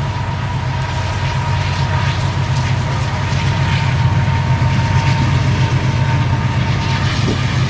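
Steady low rumble of wind buffeting the microphone, with faint footsteps on dry ground.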